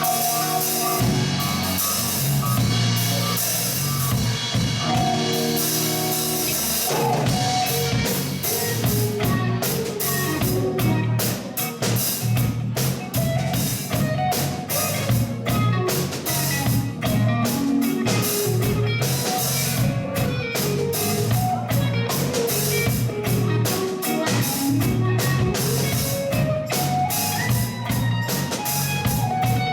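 Live rock band playing an instrumental section with electric guitar lead lines over bass and a drum kit, no vocals. The drums pick up a fast, dense beat about nine seconds in.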